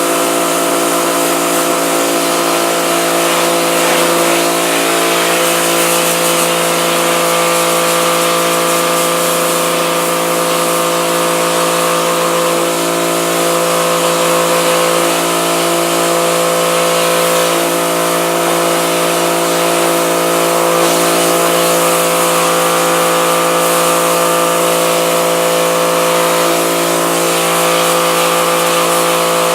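Pressure washer running steadily: a constant motor-and-pump hum under the loud hiss of the water jet, blasting leftover emulsion out of a screen-printing screen.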